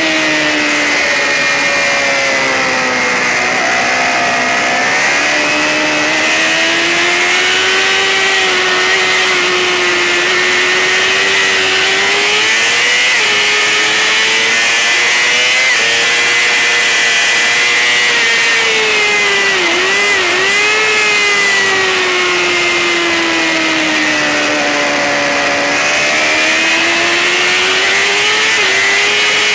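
Racing sportbike engine held at high revs, its pitch rising and falling smoothly as the bike speeds up and slows through the course. There is a brief sharp dip in pitch about two-thirds of the way through.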